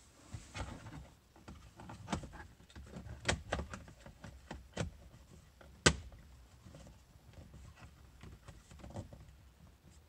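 Hard plastic dashboard trim panel on a 2015 Honda Fit's lower center console being handled and pressed into place: a series of clicks and knocks, the loudest a sharp snap about six seconds in as the panel's clips engage.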